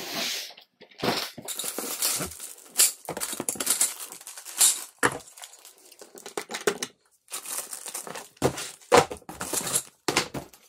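Cardboard boxes and plastic wrapping rustling and crinkling as flat-pack shoe rack parts are unpacked, with sharp clicks and light knocks of thin black metal tubes being handled.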